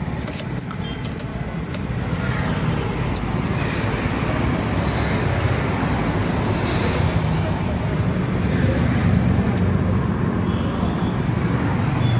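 Steady street traffic noise with a low rumble, and a few sharp clicks in the first three seconds.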